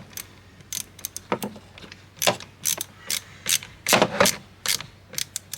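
Ratchet wrench clicking in short, irregular strokes as a car battery terminal clamp is tightened with a 10mm socket.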